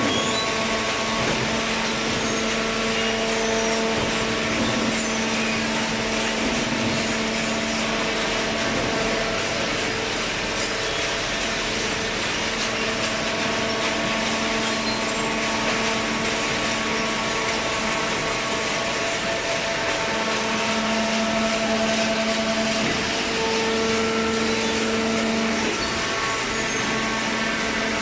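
Horizontal hydraulic cardboard baler plant running, with its motor, pump and feed conveyor making a steady whirring noise and a constant hum under it.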